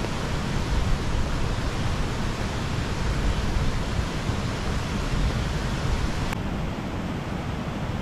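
Wind and rain: a steady rushing hiss with low, uneven rumbling from wind on the microphone. The highest part of the hiss drops away about six seconds in.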